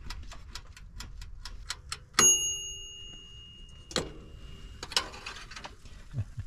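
Dash mini toaster oven's wind-up timer ticking about four times a second, then its bell dinging once about two seconds in and ringing on for a couple of seconds: the timer has run out and the bake is done. A click and a clunk follow near the end as the oven door is opened.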